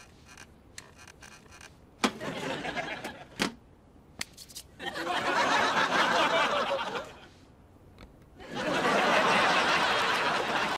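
Sitcom studio audience laughing in three swells, the second and third the loudest, with a couple of sharp knocks at the first swell.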